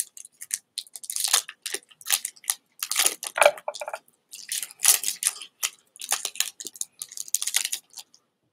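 Foil wrapper of a Pokémon TCG Lost Origin booster pack crinkling as gloved hands tear it open, a run of irregular crackles that stops about eight seconds in.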